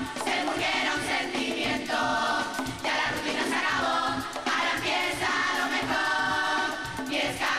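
A women's murga chorus singing together in Spanish over a steady drum and cymbal beat.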